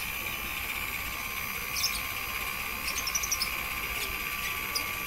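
Daikin inverter air conditioner outdoor unit running with its cover off: a steady high whine and hiss from the inverter compressor. A few short, high chirps sound over it.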